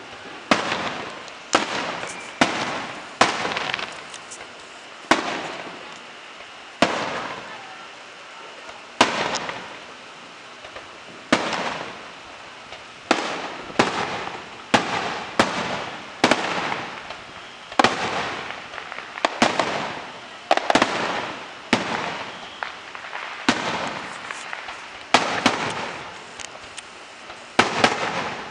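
Aerial firework shells bursting in the sky one after another, a sharp bang about every second or so at an uneven pace, each bang trailing off in a fading echo.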